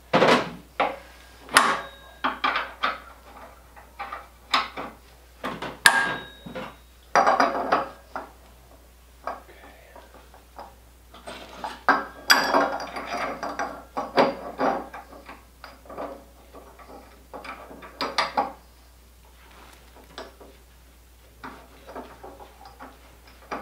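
Metal parts clinking and clanking irregularly as they are fitted onto the output shaft of a small gas engine, with two sharper knocks that ring briefly about a second and a half and six seconds in.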